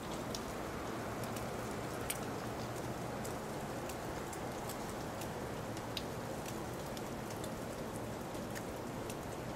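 A steady hiss with scattered light ticks and taps.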